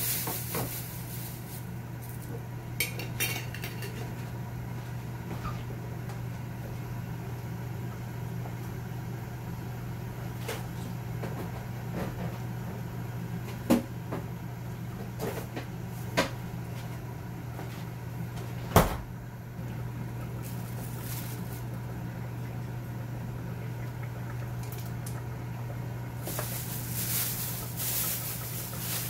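Kitchen sounds: scattered sharp knocks and clinks of pots and dishes over a steady low hum, the loudest knock about two-thirds of the way through, with some rustling near the end.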